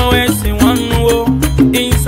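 Music: an upbeat Afro-Latin style song with percussion and shifting melody notes.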